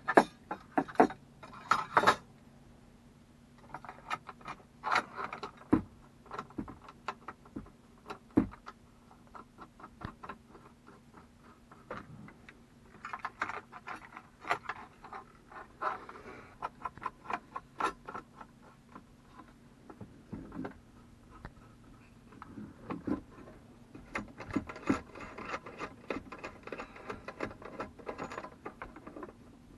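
Irregular clicks, rattles and rubbing from hands handling a CB radio and its mounting bracket while fitting it overhead, in scattered bursts, with a faint steady low hum underneath.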